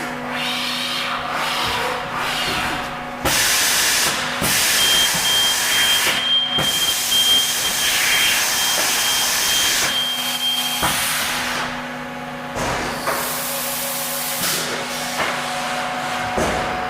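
Haas EC400 CNC horizontal machining center running, with a steady low hum and long stretches of loud hissing. A thin high steady tone sounds through the middle.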